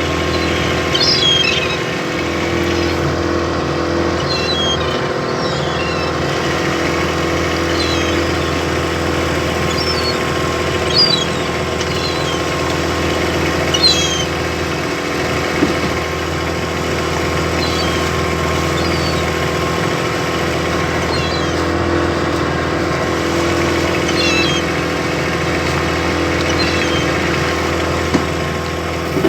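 An engine running steadily, with short, high calls of seagulls breaking in over it now and then.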